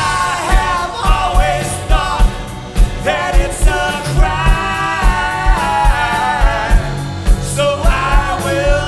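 A song with several voices singing together in harmony over a band, with a bass line and a steady kick drum beat.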